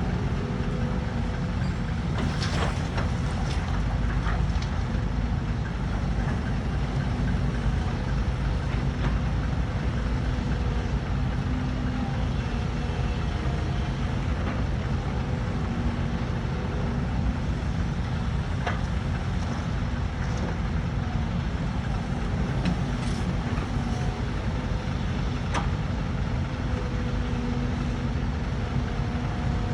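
Diesel engine of an excavator running steadily under load, with scattered short sharp knocks every few seconds.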